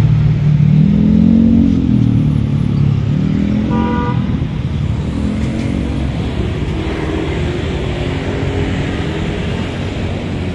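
Motor vehicle traffic passing: an engine rising and falling in pitch, with a short horn toot about four seconds in.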